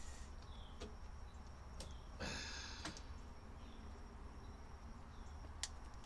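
Handling noise from a phone stand being adjusted: a few light clicks and a short rustling scrape about two seconds in, over a low steady hum.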